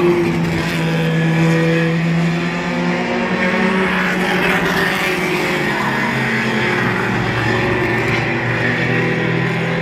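Several mini stock race cars running laps on a short oval. Their overlapping engine notes rise and fall as they accelerate and lift, with a car passing close by about four seconds in.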